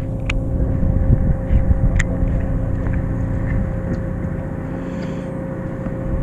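Steady low drone of a fishing boat's engine with a constant hum, broken by two sharp clicks, one just after the start and one about two seconds in.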